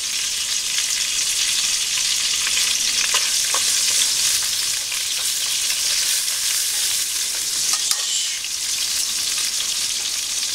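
Sliced garlic and chili sizzling steadily in hot oil in a stainless pan, stirred with chopsticks. A few faint clicks come about three seconds in and again near the end.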